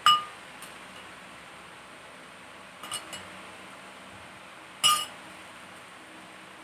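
A spoon clinking against a bowl: a sharp ringing clink right at the start, two faint taps near three seconds, and another sharp clink about five seconds in.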